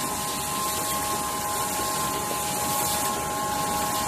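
Automatic UV tube screen printing machine running: a steady mechanical noise with a few steady high humming tones, and a brief sharper hiss about three seconds in.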